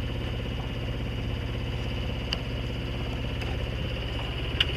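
A sailing boat's engine running steadily while the boat motors along, a low, even pulsing beat.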